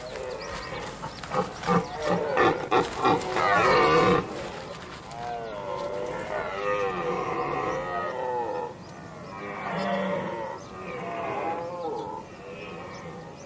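Red deer stags roaring in the rut. A run of loud, short roars comes in the first few seconds, followed by several longer calls that rise and fall in pitch.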